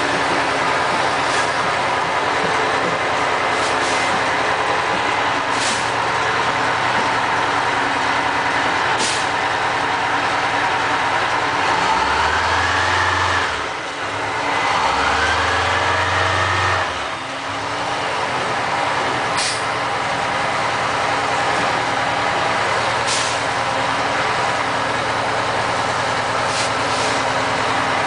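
Diesel engine of an M977 HEMTT 8x8 truck running as the truck manoeuvres. About halfway through it revs up twice, each rise lasting a couple of seconds. A few short sharp hisses come and go throughout.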